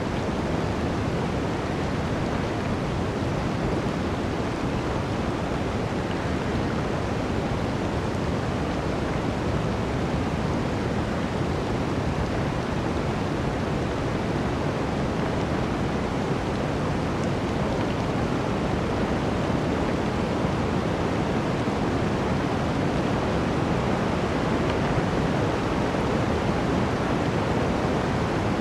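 Blizzard wind blowing through a forest: a steady, dense rush of noise without distinct gusts or breaks.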